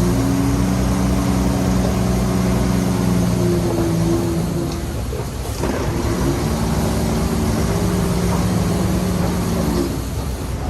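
Heavy diesel engine of earthmoving machinery running steadily under load. About halfway through it dips briefly, then picks back up at a slightly different pitch.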